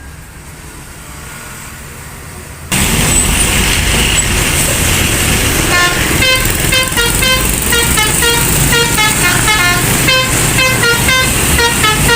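A bus's telolet 'basuri' musical horn plays a quick tune of short notes that step up and down in pitch. It starts about six seconds in, over the loud running noise of heavy traffic, which jumps suddenly louder a few seconds earlier.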